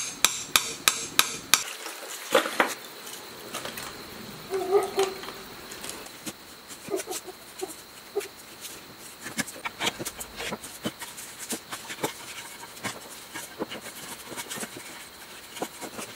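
Hammer driving a chisel through the burnt copper windings of an electric motor's stator: sharp metal strikes about three a second for the first couple of seconds. These give way to quieter, irregular clinks and taps as the cut wire is worked loose.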